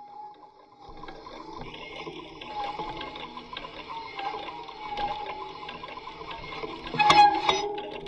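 Experimental electronic sound from a bicycle rigged as a sound instrument. A wavering tone is joined about a second in by a crackling hiss, then by several loud, sharp clicks near the end.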